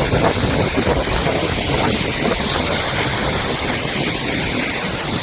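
Steady scraping hiss of a person glissading down a snow slope, sliding on the seat over the snow, mixed with wind on the microphone from the speed of the slide.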